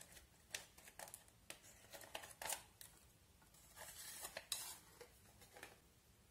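Small plastic tool scraping and picking at pressed eyeshadow in a plastic toy makeup palette: a run of short scratchy clicks, with a longer scrape about four seconds in.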